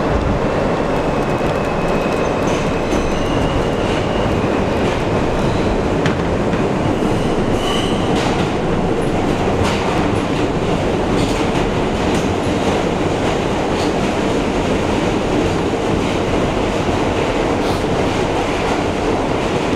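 A New York City Subway train running at speed through a tunnel, heard from inside the front car: a steady loud rumble with scattered clicks of the wheels over the track. A few faint, brief high wheel squeals come early on and about eight seconds in.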